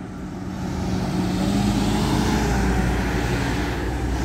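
City bus and then a van driving past close by: engine hum and tyre noise swell over the first couple of seconds and then hold steady.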